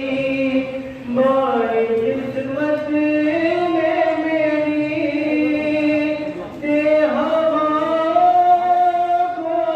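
A single voice chanting in long, drawn-out melodic phrases, the style of a religious recitation. There are short breaks for breath about a second in and again about six and a half seconds in.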